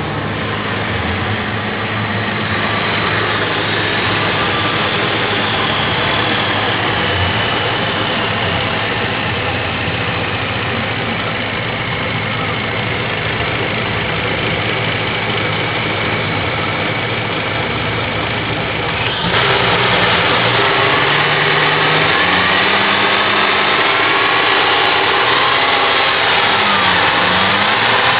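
2008 Cadillac CTS V6 engine idling steadily during a running test. It steps up in loudness about two-thirds of the way through, after which a faint tone rises and dips in pitch.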